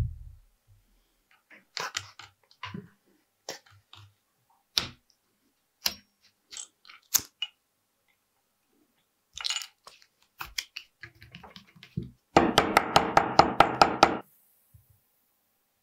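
Small hammer tapping rapidly on layered vegetable-tanned leather, about ten quick taps a second for roughly two seconds near the end. Before it, scattered small clicks and taps of hand work with thread and tools.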